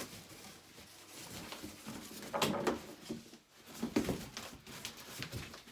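Packaging being handled: scattered knocks, scrapes and rustles of styrofoam and cardboard packing pieces being lifted and moved. The loudest clunks come about two and a half and four seconds in.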